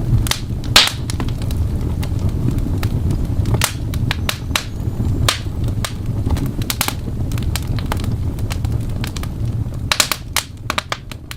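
Fireplace fire crackling: irregular sharp pops and snaps over a steady low rumble, fading out near the end.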